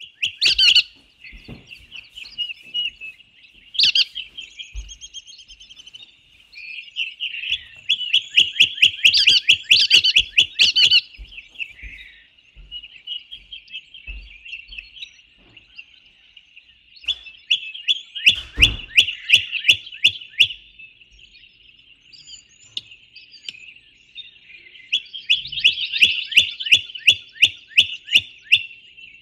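Birds calling: a continuous high, thin, trilling chatter, broken several times by loud runs of rapid, sharp repeated notes.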